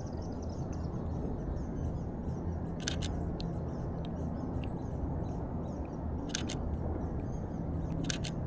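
Canon EOS RP camera shutter released three times, each a quick double click, over a steady low rumble.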